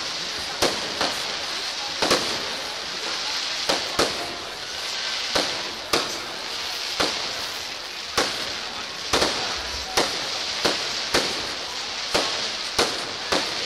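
Fireworks display: aerial shells bursting in sharp bangs at irregular times, one or two a second, over a steady high hiss.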